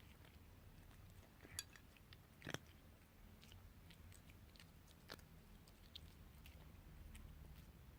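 Domestic cat chewing crunchy cat treats: faint, irregular crunches and clicks, the loudest about two and a half seconds in, over a low hum.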